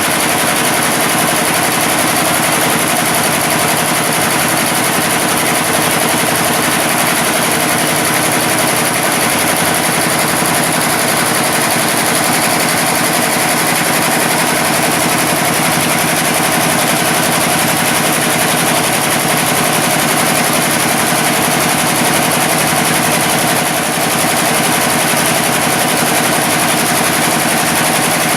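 Computerized embroidery machine running, its needles stitching in a fast, even rapid-fire clatter with a steady high whine, dipping briefly near the end.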